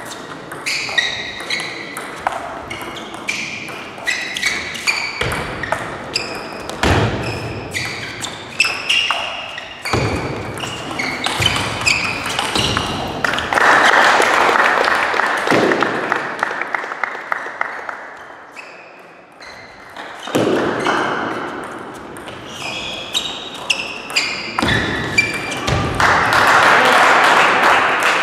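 Table tennis rallies: the ball clicks off the bats and the table in quick back-and-forth exchanges, and footwork squeaks and shuffles on the court floor. Twice, after points, there is a short burst of spectators' applause, about halfway through and again near the end.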